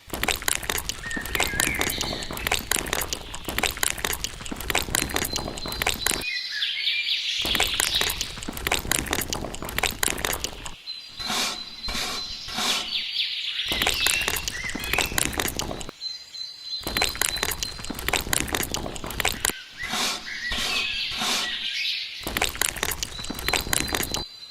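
Birds chirping outdoors over a dense run of small clicks and knocks, with several abrupt cuts.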